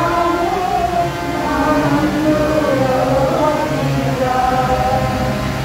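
Women's voices singing a devotional chant for the Narayan puja, with long held notes that slide from one pitch to the next.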